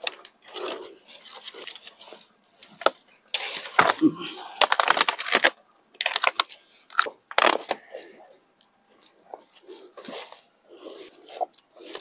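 Dry branches, twigs and leaf litter crackling and crunching as brush is pulled up and dragged by hand. The crackle comes in irregular bursts and is loudest from about three to five and a half seconds in.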